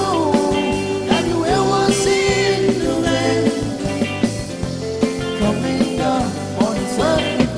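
Loud amplified Thai ramwong dance music: a singer holds long, wavering notes over band accompaniment with a steady beat.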